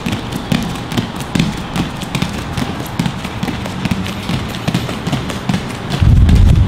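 Quick barefoot footsteps on rubber gym mats during agility-ladder scissor-step drills: an irregular patter of taps and soft thuds. Near the end a loud low rumble comes in.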